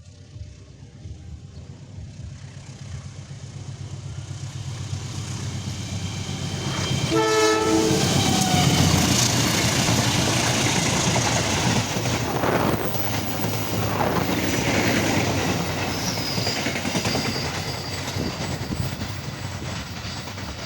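Majapahit passenger train approaching and passing at speed: the rumble grows louder, the locomotive sounds one short horn blast about 7 seconds in, then loud wheel and carriage noise with clickety-clack goes by, easing slightly near the end.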